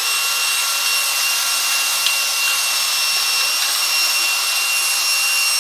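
Cordless drill spinning a chamber brush inside an AR-15 upper receiver, the motor running steadily with a constant high whine.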